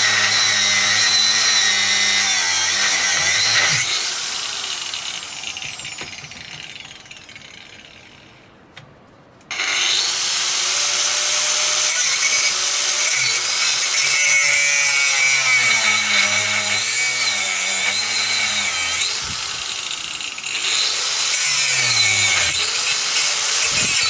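Mains-powered Makita GA5030R angle grinder cutting into a bike lock. About four seconds in, the grinder winds down over several seconds with a falling pitch. It comes back loud suddenly about nine and a half seconds in and keeps grinding.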